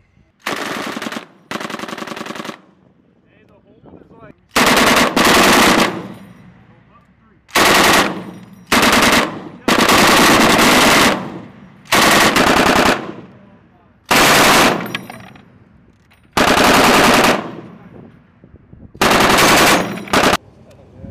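M240B belt-fed 7.62 mm machine guns firing about ten short bursts of automatic fire, each lasting under a second and a half. The first two bursts are quieter than the rest.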